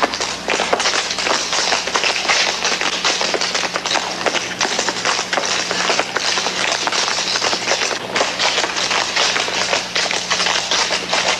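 Rapid, continuous tapping and scuffing of dancing feet on pavement, a dense patter of short taps, over a steady low hum.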